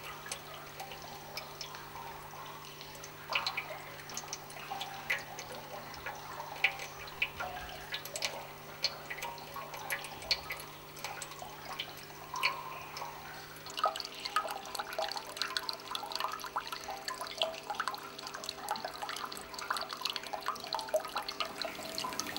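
Water dripping from cupped hands into a metal basin: irregular single drops at first, coming thicker and faster about two-thirds of the way through, over a faint steady hum.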